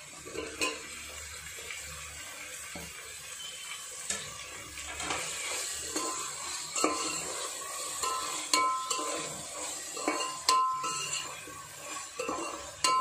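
A perforated metal spoon scraping and clinking against a metal pot as sliced tomatoes are stirred into onions, green chillies and herbs frying in oil. The frying sizzles steadily underneath, and the metal rings briefly on some strokes in the later part.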